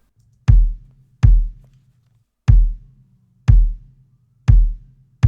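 Layered acoustic kick drum samples, a sub kick plus the kick body, played back as a groove: six kicks in an uneven rhythm, each a deep thud with a short click on the attack.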